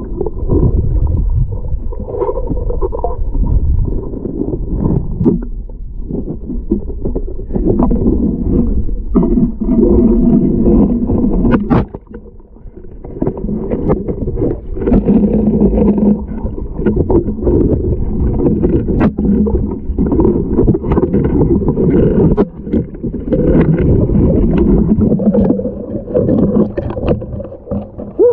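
Underwater noise heard through a diver's camera housing: a loud, wavering low rumble with bubbling, broken by scattered sharp clicks and knocks and by two short lulls.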